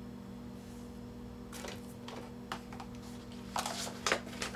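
Cardboard game boards and paper booklets being handled and lifted out of a box: a few short taps and rustles, the loudest about four seconds in, over a steady low electrical hum.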